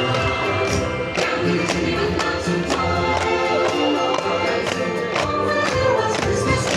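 Festive Christmas music with a choir singing over a steady beat of jingling percussion.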